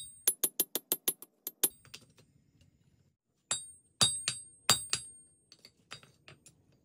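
Hand hammer striking red-hot steel on an anvil, each blow ringing bright and metallic. A quick run of about eight blows, a pause of about two seconds, then five strong blows and a few lighter taps near the end.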